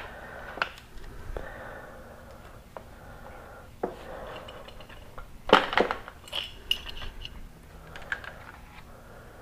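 Handling noises from a solar oven tube and its rubber plug being fitted by hand: scattered knocks and light clinks, with a quick run of sharp clinks about halfway through and a brief ringing just after.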